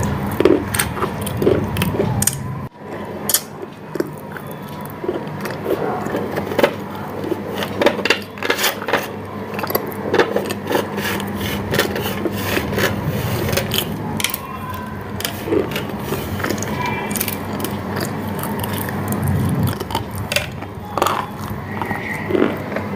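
Someone biting and chewing hard, crumbly white chunks: many sharp, irregular crunches and crackles, over a low steady hum.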